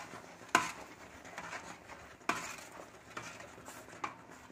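Spoon stirring thick jackfruit halwa in a large uruli, knocking against the pan four times.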